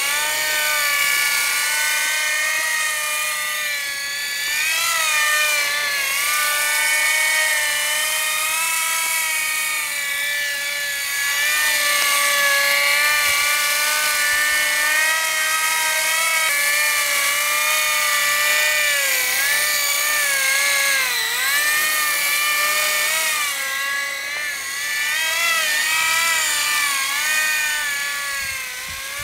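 Electric RC model helicopter in flight, a Graupner Koala converted to a single-rotor fixed-pitch machine with a driven tail rotor. It gives a steady high motor-and-gear whine with rotor buzz, its pitch rising and falling as the rotor speed changes with the throttle.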